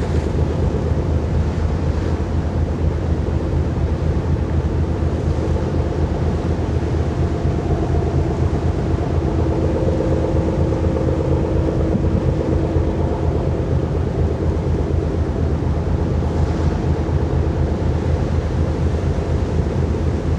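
Wind buffeting the microphone in a steady, heavy low rumble, with a faint hum coming in about eight seconds in and fading away a few seconds later.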